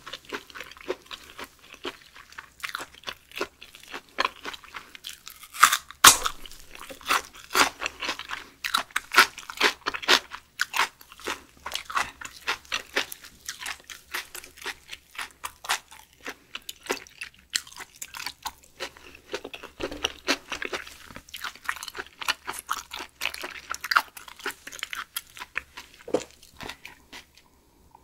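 A person chewing and crunching food close to the microphone, with a steady run of short, crisp crunches.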